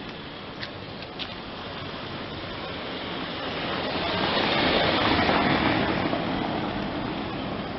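A car passing close by on a cobblestone street: its tyre and engine noise swells to a peak about five seconds in, then fades as it drives away.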